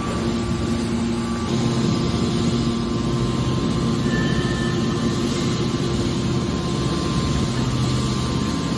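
Industrial machinery running steadily: a constant hum over a dense rumble, with no pauses or impacts.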